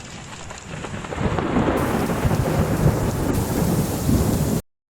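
Heavy rainstorm with strong wind: a dense rush of rain over a deep, fluctuating rumble. It swells louder about a second in, then cuts off abruptly shortly before the end.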